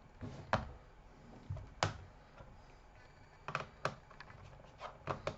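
Sharp small clicks and taps, about six in all, from screws, a screwdriver and the plastic case of a laptop being taken apart.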